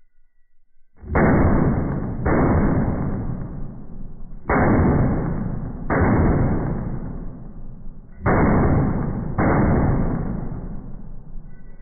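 Rifle shots played back in slow motion: six deep booms, each sudden and dying away slowly, falling in three pairs about a second apart.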